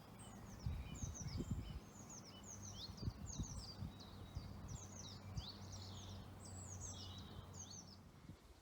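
Small bird singing: a steady run of short, high chirps that each slide down in pitch, over a low outdoor rumble with a few soft bumps.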